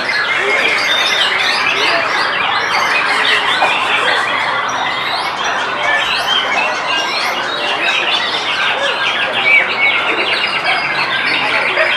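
Many songbirds singing at once in a dense, overlapping chorus of chirps and whistles, among them a white-rumped shama in its cage, with a fast repeated trill near the end.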